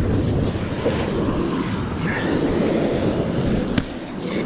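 Sea waves washing and breaking against the rocks, with wind buffeting the microphone, a steady low rushing noise. One brief sharp click near the end.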